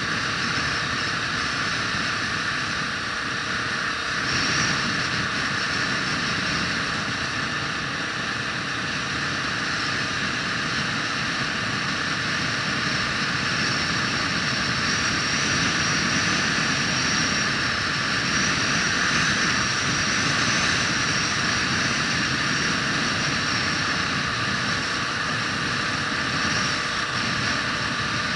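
A vehicle driving along at a steady pace, heard from on board: an even, unchanging drone of running noise.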